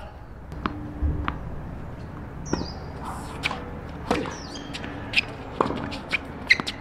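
Tennis ball bounced on a hard court and then struck by rackets in a serve and rally: a string of sharp, short pops. The loudest hits come about five and six and a half seconds in.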